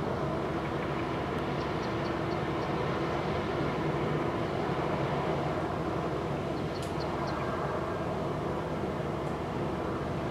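Steady low rumble of ship engines on the river, an even drone with a faint hum in it. A few faint high chirps sound over it.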